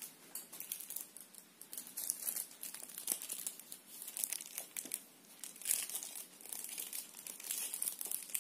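Faint, irregular crinkling and rustling: a high crackle that comes and goes, with no clear single event.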